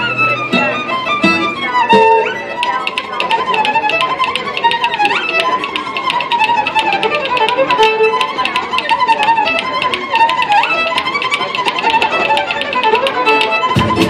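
Solo violin playing a lively folk-style melody: low notes for the first two seconds, then a higher wavering line with quick upward slides over a fast, even pulse of short strokes.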